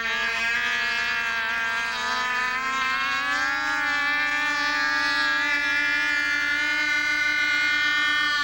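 Small radio-controlled model aircraft engine running at high revs with a steady buzz as the plane flies past. Its pitch rises a little about two to three seconds in, then holds steady.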